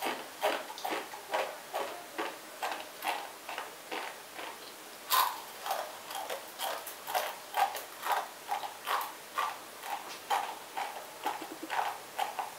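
Raw, uncooked Maggi instant noodles being chewed: a steady run of crisp crunches, about two to three a second.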